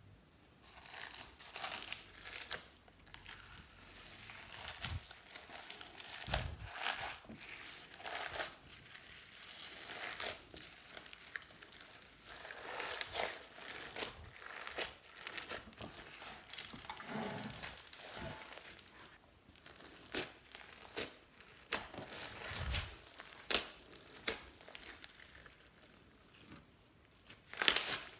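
Slime loaded with beads, sequins and glitter being mixed and kneaded by hand, giving an irregular run of crinkling and crackling as the add-ins are pressed, stretched and folded through it.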